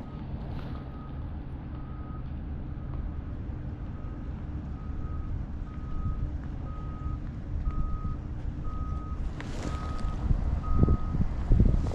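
A vehicle's reversing alarm beeping steadily, about one and a half beeps a second, over a steady low engine rumble, with louder low rumbling near the end.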